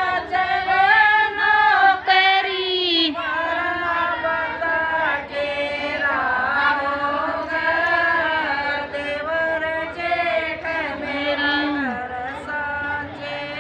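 A group of women singing a chant-like song together, in long held lines that rise and fall.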